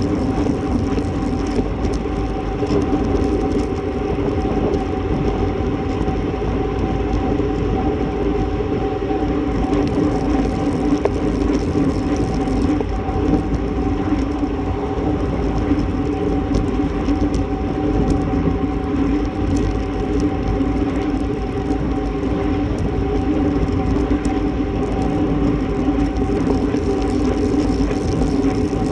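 Steady wind rush and road-bike tyre noise on the asphalt, picked up by a bike-mounted camera riding at speed, with a constant low hum under it.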